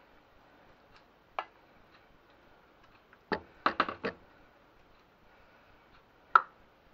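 A wooden spoon knocking against a frying pan and a ceramic baking dish as vegetables are spooned out and spread: a single tap about a second and a half in, a quick run of about four taps a little after three seconds, and one more tap near the end.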